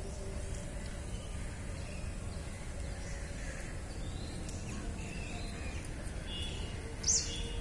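Outdoor ambience: a steady low rumble with faint bird calls scattered through, and one short, sharp high-pitched chirp about seven seconds in.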